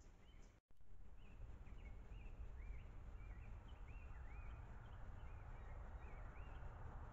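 Faint outdoor birdsong: a small bird repeating short up-and-down chirps many times, over a steady low rumble and hiss. The sound drops out completely for an instant about half a second in.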